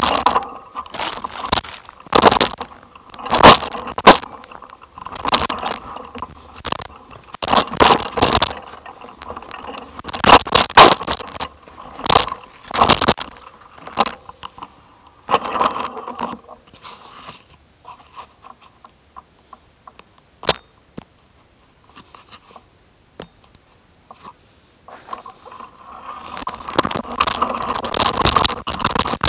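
Tyres rolling and jolting over a rough, rutted dirt and gravel track, with irregular loud crunches and scrapes. About halfway through it goes much quieter with only scattered small ticks, and a steadier rushing noise builds near the end.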